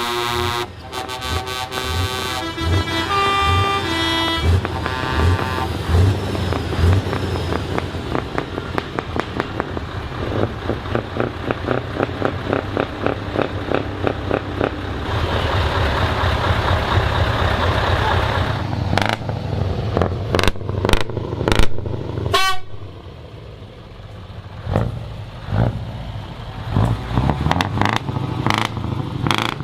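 Arriving trucks' air horns sounding in several changing tones, followed by a truck's diesel engine running with a steady pulsing beat. Several sharp, short cracks come about two-thirds of the way through.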